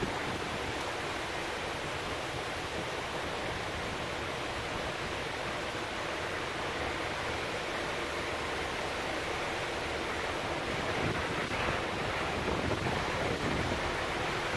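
Heavy downpour with wind stirring tree leaves, raindrops hitting a tin window ledge, all making a dense, steady rush that grows a little louder near the end.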